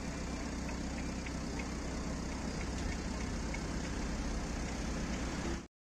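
Steady low outdoor rumble of street background noise, with a few faint ticks over it; it cuts off suddenly near the end.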